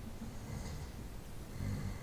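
A person snoring: two low snores, one about a quarter of the way in and one near the end, over a steady low rumble.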